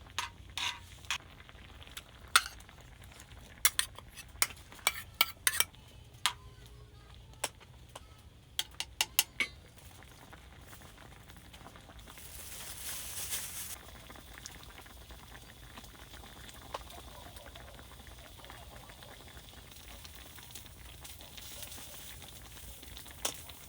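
Light clinks and knocks of utensils against pots and dishes, scattered through the first ten seconds, then a short hiss about twelve seconds in, and faint background noise after that.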